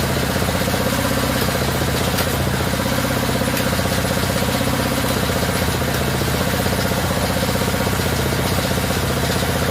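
Homemade 3-in-1 bamboo satay-skewer-making machine running steadily, its drive motor giving a loud, even hum with a fast mechanical rattle.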